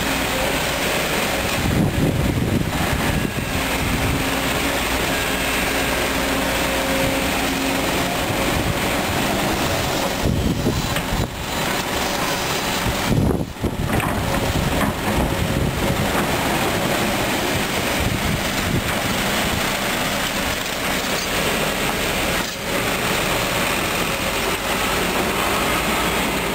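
Kobelco SK200 hydraulic excavator's diesel engine running steadily as the machine digs, swings and dumps soil into a dump truck's bed.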